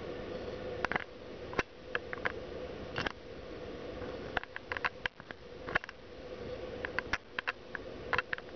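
Handling noise from a handheld camera: irregular small clicks and taps, a dozen or more, over a steady hum.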